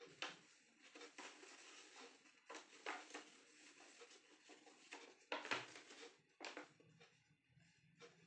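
Faint rustling and crinkling of a sheet of paper being folded and creased by hand, in short irregular crackles with a few louder ones.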